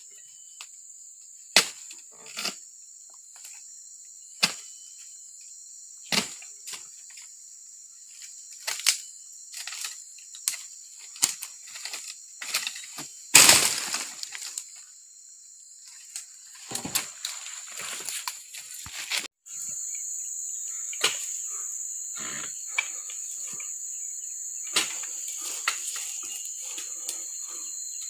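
Oil palm being harvested with a dodos, a chisel on a long pole: sharp chopping strikes every second or two as the blade is thrust into the frond bases and bunch stalks, with a longer crash and rustle about halfway through. Insects buzz steadily and high throughout.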